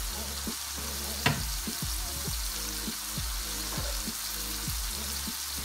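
Small whole champignon mushrooms frying in a pan, a steady sizzle, with one short sharp knock a little over a second in.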